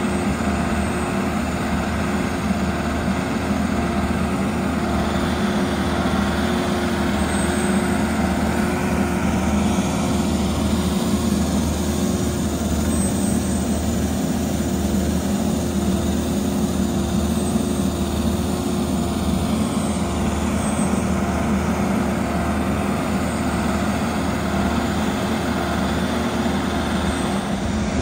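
Engine of a trailer-mounted crack-sealing melter running steadily at a constant pitch while it pumps hot sealant to the applicator wand.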